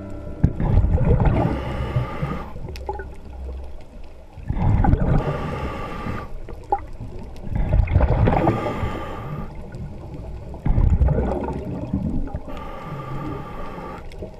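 Scuba regulator breathing heard underwater: a series of bubbling exhalations every three seconds or so, with quieter inhalation gaps between.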